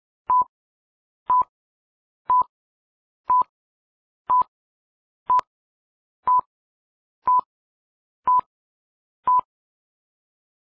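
Film-leader countdown: ten short, identical beeps of one steady pitch, evenly spaced one a second, with silence between them, one for each number from 9 to 0.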